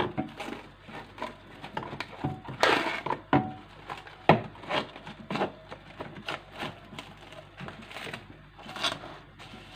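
Scattered kitchen handling noises: irregular light knocks and taps with short rustles, a louder rustle about three seconds in.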